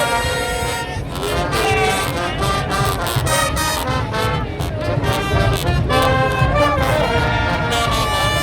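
Brass music with trumpets and trombones playing sustained, shifting chords over a steady low rumble.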